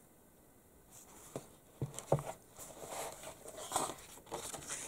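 Pages of a printed magazine being handled and turned: a few sharp paper clicks, then rustling as a page flips over.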